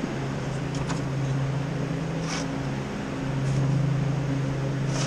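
Steady low electrical hum of running refrigeration machinery, easing slightly about three seconds in, with a couple of brief faint hissing rustles.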